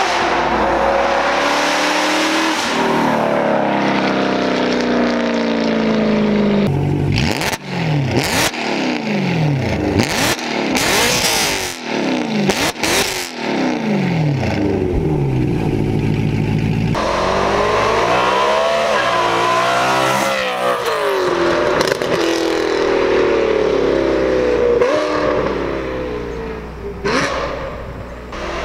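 BMW E92 M3's 4.0-litre V8 through a GTHAUS Meisterschaft exhaust, really loud. The car accelerates past under mild throttle, then revs in quick blips while standing, with sharp cracks between the blips, then accelerates past again.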